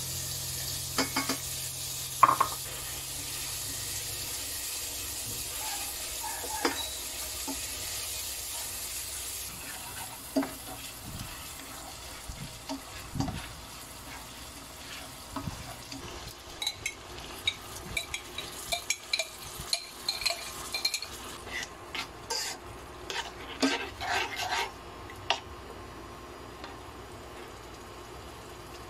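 Ground meat sizzling in a frying pan, with a utensil scraping and knocking against the pan as the meat is stirred and broken up. The scrapes and clatters come thickest in the second half.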